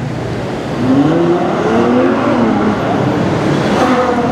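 Ferrari FF's V12 engine accelerating past, its note climbing in pitch about a second in.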